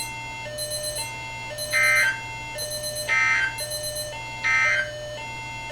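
Three short bursts of warbling Emergency Alert System data tones, about a second and a half apart: the end-of-message signal that closes the alert. A quieter pattern of steady tones that step up and down in pitch runs underneath.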